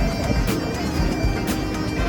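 Background music with a steady beat, a sharp hit about once a second over low thuds and held notes.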